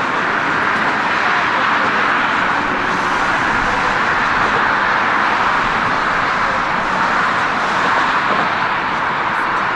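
Steady outdoor background noise: a loud, even hiss with no separate events standing out.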